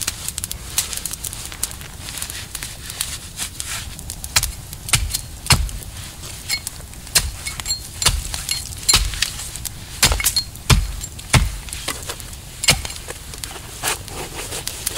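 Hands handling dry wood and camp gear to set up a campfire: an irregular run of sharp cracks, knocks and light clinks. Several heavier thumps fall about five seconds in and again between eight and eleven seconds.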